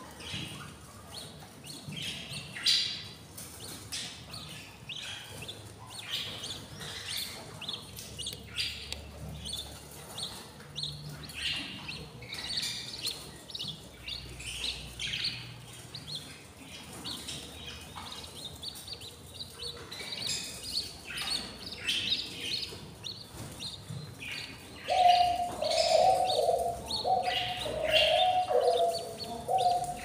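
Budgies chirping in many short, high calls. Near the end a louder, lower wavering call joins in.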